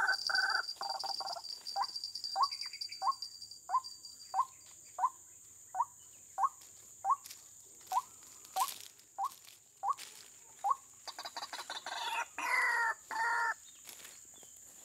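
White-breasted waterhen calls: loud harsh croaking at the start, then a regular run of short rising notes about two every three seconds, then another burst of loud croaking calls about 12 seconds in. A steady high insect buzz runs underneath.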